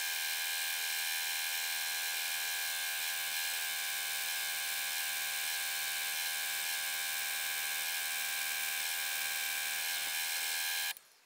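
Milling machine spindle running with a steady whine while a twist drill bores the hole for an M10 tap into a metal receiver; it cuts off suddenly near the end.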